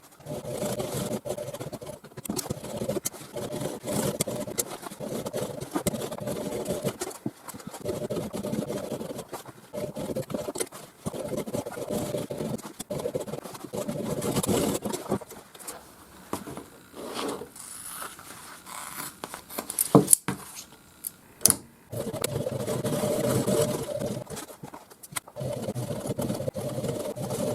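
Sewing machine stitching in runs of several seconds, with short pauses between seams and two sharp clicks about two-thirds of the way through.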